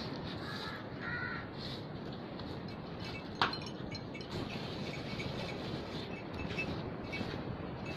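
A cow being hand-milked into a metal pail, the milk streams hissing steadily into the pail, with one sharp metallic clink about three and a half seconds in. A crow caws twice about a second in.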